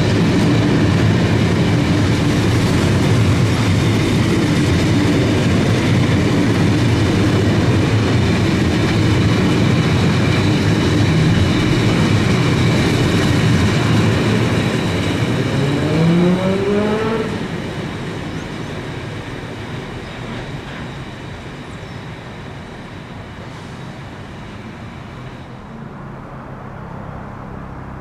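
Freight train passing close by, its wagons rumbling and clattering along the rails. A brief rising whine comes about sixteen seconds in, then the train noise drops away and fades.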